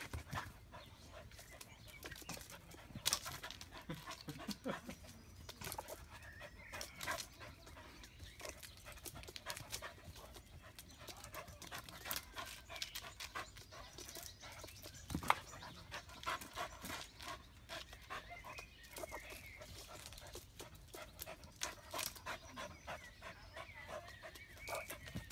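A dog panting hard while it jumps up against a tree trunk, with scattered short clicks and scrapes throughout.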